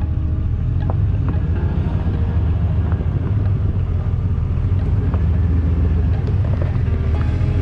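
2001 GMC Sierra 2500HD pickup driving slowly over a rough dirt jeep trail: a steady low engine and road rumble with a few light knocks and rattles.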